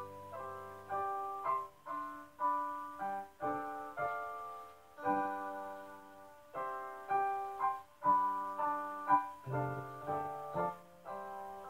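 Piano music with no singing: a slow, gentle passage of notes and chords struck at an unhurried, even pace, each left to ring and fade.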